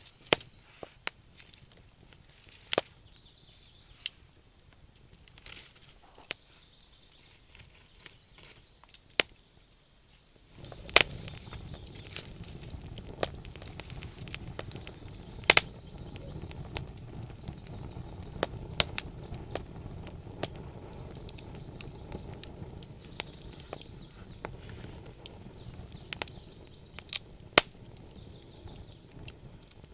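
Wood fire in a fireplace crackling, with sharp, irregular pops. About a third of the way through, a low, steady rush of flames starts up under the crackling.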